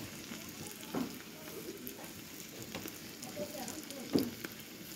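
Diced potatoes frying in oil in a covered pan with a glass lid: a steady, muted sizzle with faint crackles. Two brief louder sounds come through, about a second in and near the end.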